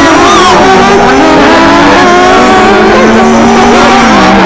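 A man's voice imitating a vehicle engine: a continuous, very loud droning hum made of several wavering tones at once, with no pauses.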